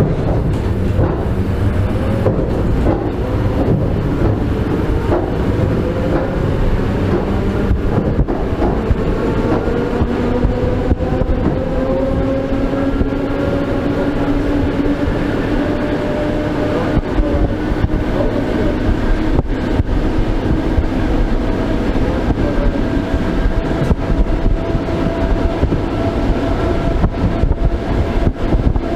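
Old suburban electric train running, heard through an open window: wheels clacking over the rail joints amid steady rumble and rushing air, with a whine that slowly rises in pitch through the second half as the train picks up speed.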